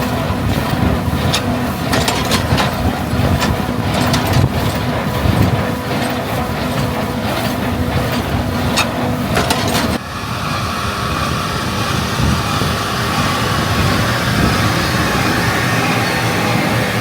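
Farm machinery working a straw field: a tractor engine running steadily with repeated sharp mechanical clicks and clacks from the implement it drives. About ten seconds in, the sound cuts to a different steady engine drone.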